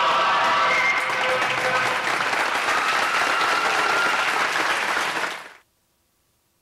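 Audience applauding, with the final chord of the music fading out under it in about the first second. The applause cuts off abruptly near the end.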